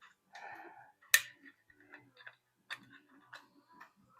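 Chisel edge scraping over a speaker driver's rim, clearing off the remains of the old rubber surround: a short scrape, a sharp click about a second in, then a few fainter ticks.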